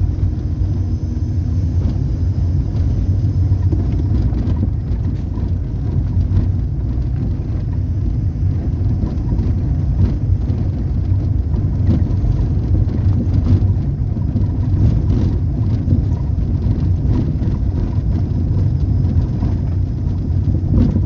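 Car driving on an unpaved dirt road, heard from inside the cabin: a steady low rumble of engine and tyres, with occasional light knocks from bumps in the road.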